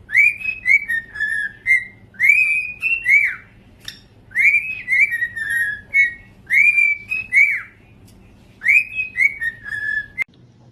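Cockatiel whistling the same short phrase five times over, each phrase a quick run of clear notes that swoop up and down.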